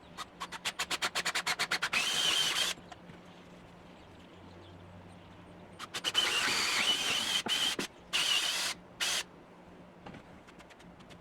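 Power drill running in short bursts, boring holes in a wooden wall plate. A rapid series of clicks opens it, then a brief steady whir with a high whine, and a second set of bursts comes about six seconds in.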